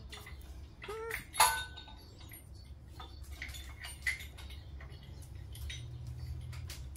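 Metal tools and engine parts clinking and clattering during work on an engine, with one loud ringing clank about a second and a half in and a short squeak just before it. A steady low hum runs underneath.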